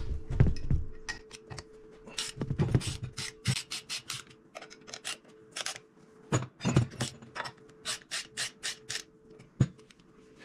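Hand ratchet with a 3/8 in. Allen socket clicking in repeated quick runs as the caliper bolts are loosened on a disc brake spindle. There are a few heavier metal knocks in the first few seconds and a faint steady hum throughout.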